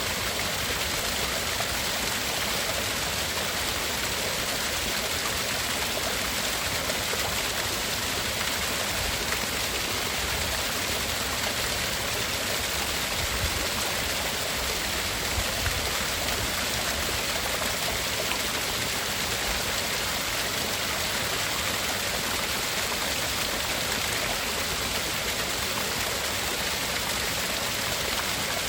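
Steady, hissy rushing noise like a flowing stream, played as a tinnitus-masking sound.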